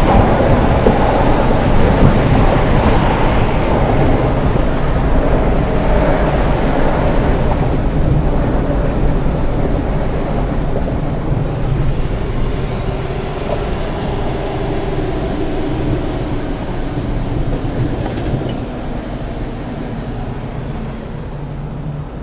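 Steady road and wind noise heard from inside a moving car, a low rumble with a rushing hiss, getting gradually quieter over the last several seconds.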